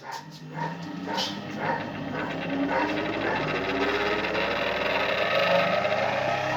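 Scheppach BG 200 AL bench grinder switched on, its motor and two 200 mm grinding wheels spinning up, the whine rising slowly and steadily in pitch over several seconds. It runs quietly with barely any vibration.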